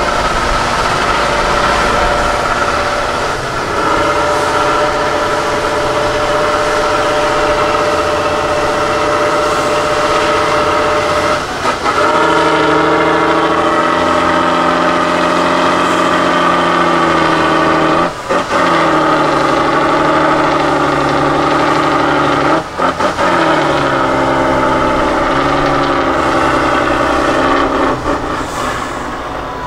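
Tatra 813 8x8 truck's diesel engine working hard under load, climbing a steep muddy slope, with black smoke from its exhaust stack. The engine note shifts in pitch several times and dips sharply for a moment three times, about twelve, eighteen and twenty-three seconds in.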